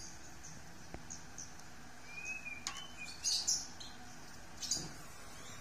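Small birds chirping faintly in the background: several short high chirps and a brief curved whistle a little after two seconds in. A couple of soft clicks come from the plastic tank emblems being handled.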